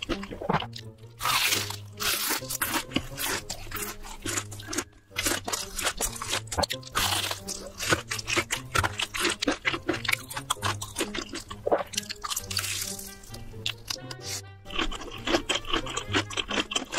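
Loud, close crunching and chewing of fried chicken, many crisp bites in quick succession, over background music with a steady bass beat.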